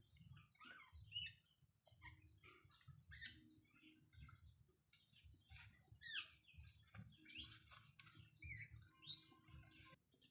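Small birds chirping faintly: many short calls that slide up or down in pitch, with soft scattered clicks and a low hum beneath.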